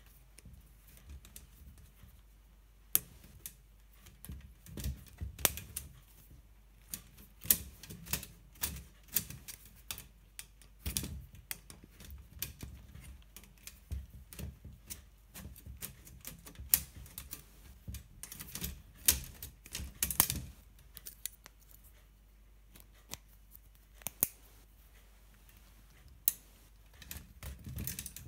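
Irregular sharp metallic clicks and clinks of pliers and a steel split ring knocking against aluminium leg pins, as a rubber ball foot is worked off the ring by hand. The clicks come in bunches, thickest around the middle, with quieter gaps between them.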